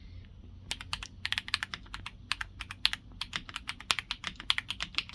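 Fast typing on a Keychron C3 Pro tenkeyless mechanical keyboard, rapid clacky keystrokes starting a little under a second in. The keys are fitted with switches the owner believes are browns.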